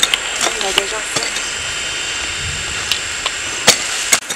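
Hand hoes chopping and scraping in soil: irregular short knocks and clicks, over a steady high-pitched whine and a hiss.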